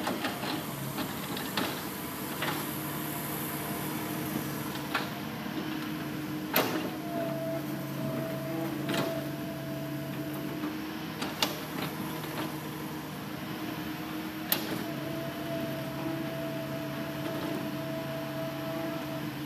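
Hitachi Zaxis 200-5G excavator's diesel engine running steadily with a held hydraulic whine, broken by a few sharp knocks, the loudest about six and a half seconds in.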